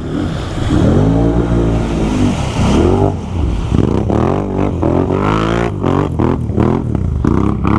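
ATV engine revving up and down again and again, its pitch rising and falling every second or so over a steady low idle hum.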